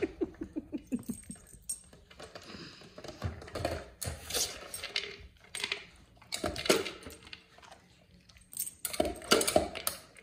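Dog nosing and pushing a plastic treat-puzzle feeder, with irregular clinks and clatters of the plastic and the loose kibble inside. There is a run of quick ticks near the start and scattered bursts after it.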